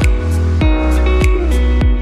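Background music with a steady beat, a little under two beats a second, over a deep bass.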